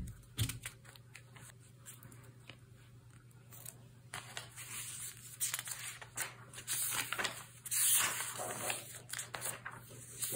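Pages of a thick Hobonichi Cousin planner being turned and handled: dry rustling and crinkling of thin paper with soft taps, busiest about three-quarters of the way in.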